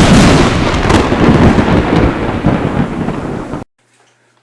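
A loud, dense rumbling noise with no tone in it that cuts off suddenly near the end, leaving near silence.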